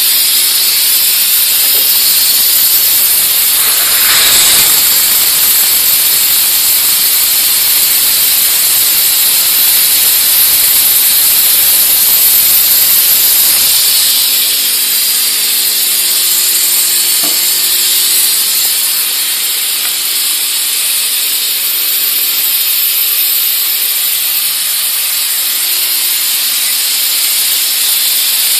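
Steady, loud hiss of steam jetting from the spray gun of an electric steam wash machine. About halfway through, the deeper part of the sound drops away and a faint hum shows beneath the hiss.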